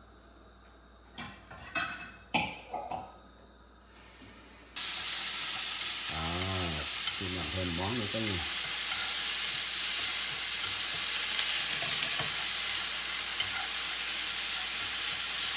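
A few light knocks, then about five seconds in, food goes into a hot nonstick frying pan on a gas burner. It starts sizzling loudly and steadily as it is stirred and turned with chopsticks.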